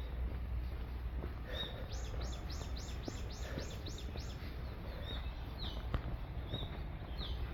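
Songbirds calling: a short high call repeated every second or so, and a run of about nine quick descending notes between two and four seconds in. A steady low rumble sits underneath, with a single sharp click about six seconds in.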